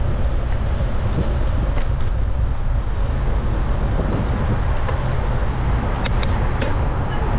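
City road traffic heard from a bicycle: a steady low rumble of passing cars and buses, with two or three sharp clicks about six seconds in.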